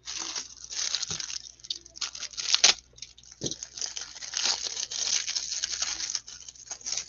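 Foil wrapper of a trading card pack crinkling as it is torn open and pulled off the cards by gloved hands, in an irregular run of crackling and rustling with a few sharper rips.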